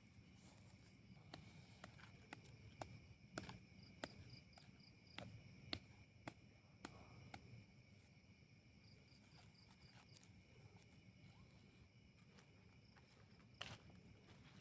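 Faint night ambience: insects trilling steadily, one with a pulsing chirp that comes and goes, with scattered soft clicks and crackles, most of them in the first half and one louder near the end.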